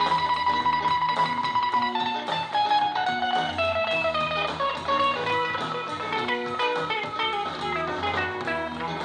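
Live band recording of bluesy guitar music played back through a retro-style stereo's speakers: an electric guitar holds one note for about the first two seconds, then plays a descending lead run over a bass line.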